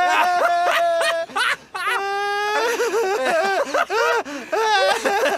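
A man's voice wailing and whimpering in sobbing bursts, with one long, high held wail about two seconds in.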